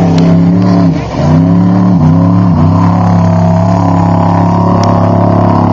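Off-road race vehicle's engine running hard at high revs. The revs dip sharply about a second in, and twice more briefly a second later, each time climbing straight back, then hold steady.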